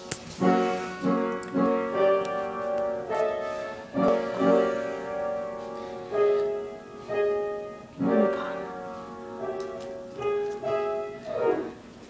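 Piano music: a melody of single struck notes, roughly one a second, each ringing out and fading.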